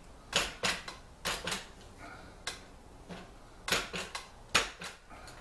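Sharp, irregular metal-on-metal knocks and clanks, about ten in all, the loudest near the end, as a fabricated steel part is persuaded down into place on a mini bike frame.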